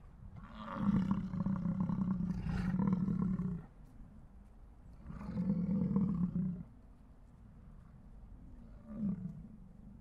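American bison bellowing: a long, deep bellow of about three seconds, a second of about a second and a half, and a short one near the end.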